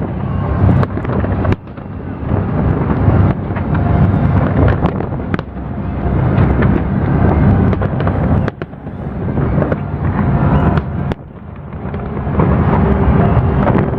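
Fireworks display: a dense, continuous barrage of booms and sharp cracks over a deep rumble, easing briefly a few times before building again.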